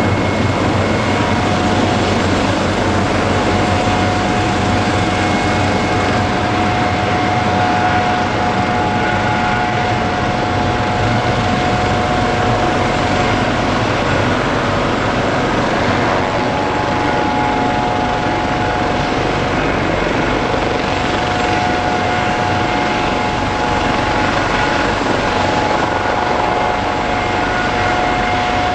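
Leonardo AW139 twin-turbine helicopter running steadily, with a constant turbine whine over dense rotor and engine noise.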